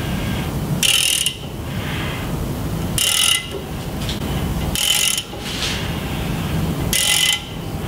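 Ratchet wrench on the crankshaft socket being worked back and forth to turn a small-block Chevy crank: four short bursts of pawl clicking about two seconds apart, over a steady low rumble. The crank is being rolled so the lifter sits on the base circle of the cam for zeroing the dial indicator while degreeing the cam.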